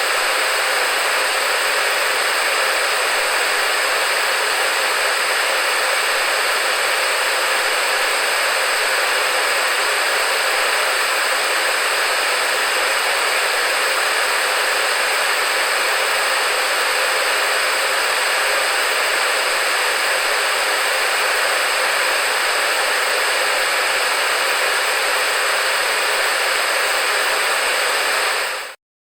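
Television static: a steady, even hiss of white noise with little low end, which stops abruptly near the end.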